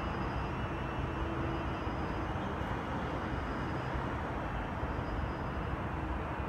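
Steady rumble and hiss of a train running at a distance, with a faint high whine held on one pitch.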